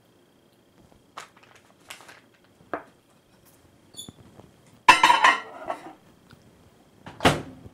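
A glass mixing bowl with a spoon in it is set into an over-the-range microwave oven and the door is worked: a few light knocks and clinks, then a louder clatter about five seconds in, and a last knock near the end.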